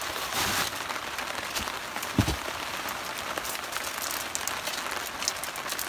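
Steady rain falling on a plastic tarp overhead, with many separate drop hits. A single dull thump about two seconds in.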